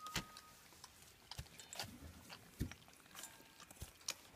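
German Shepherd puppies chewing: faint, irregular crunches and clicks, a few every second.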